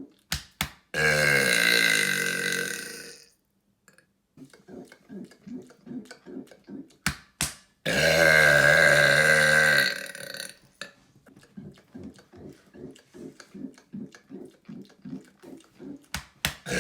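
A man burping loudly on purpose: two long burps of about two seconds each, the first about a second in and the second near the middle. Between them come quieter rapid short sounds and a few sharp clicks, and a third burp starts at the very end.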